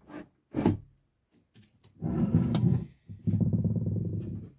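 A few light knocks, then a heavy object dragged twice across the workbench in rough, stuttering scrapes, about a second and then a second and a half long.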